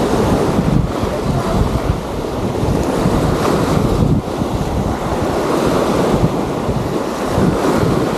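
Wind buffeting the microphone over the steady wash of waves on the beach, a dense low rumble that rises and falls with the gusts.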